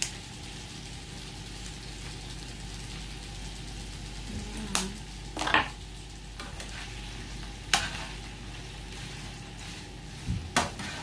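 Shell-on shrimp sizzling steadily in hot oil in a frying pan, with a few sharp knocks. Near the end a spatula stirs the shrimp in the pan.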